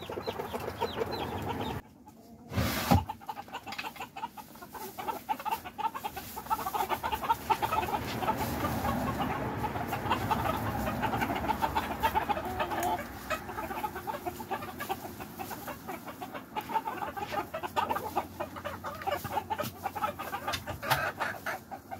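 A flock of silkie chickens clucking and chirping continuously. A short, loud knock sounds near three seconds in, just after a brief lull.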